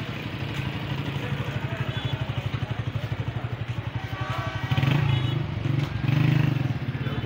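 Small motorcycle engine running close by with a rapid, steady low beat, swelling louder twice in the second half. Street noise with a few voices underneath.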